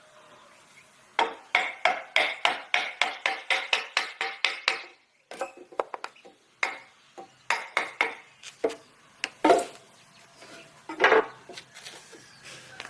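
Hand woodworking tools on wood. A run of quick, even strokes, about four a second, with a faint ringing, stops a few seconds in. It is followed by scattered single knocks, two of them louder near the end.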